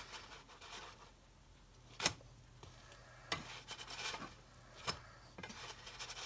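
A spatula scraping and stirring in a nonstick skillet, pushing loose fried cereal crumbs around, with three sharp knocks of the spatula against the pan.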